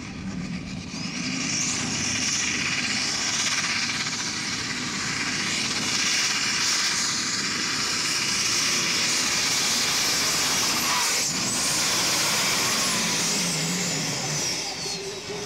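Modified pulling tractor's engine at full throttle, dragging a weight-transfer sled on a pull: loud, steady engine noise with a high whine over it. It builds up in the first couple of seconds and falls away near the end, as the tractor reaches the finish.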